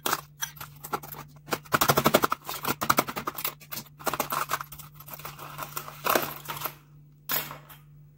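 Crushed ice being scooped with a spoon from a plastic tub into a drinking glass: a run of quick clicks, scrapes and clinks, fastest about two seconds in, with a last clink near the end.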